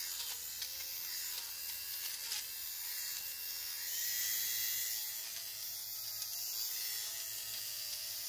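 Ranvoo Go Go dual-head electric lint remover (fabric shaver) running with a quiet, steady motor whir, its pitch rising slightly about four seconds in.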